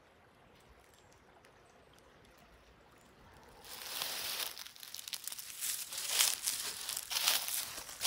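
Footsteps crunching through dry fallen leaves on the forest floor, starting about halfway in as uneven, loud crunches.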